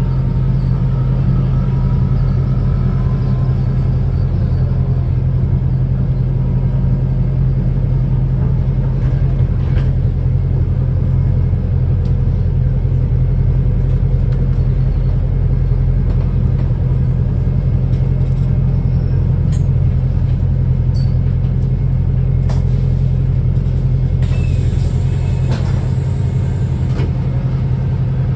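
Cummins ISBe 4.5-litre inline-four diesel of a Wrightbus New Routemaster series-hybrid bus, running at a steady speed with a constant low drone.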